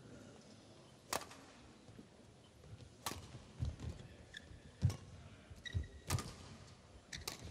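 Badminton rally: about five sharp cracks of rackets striking the shuttlecock, one every one to two seconds, with dull thuds of players' feet landing on the court.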